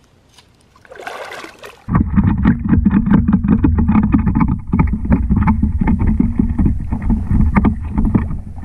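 Shallow water splashing and sloshing right against the camera around a stingray pinned on a gig: a brief splash about a second in, then from about two seconds a loud, muffled churning with rapid knocks.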